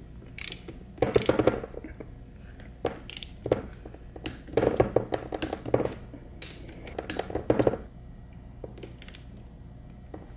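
Ratchet head of a long torque wrench clicking in several short runs of rapid clicks as the front bearing retainer bolts of a T5 transmission are run down and torqued to 18 foot-pounds.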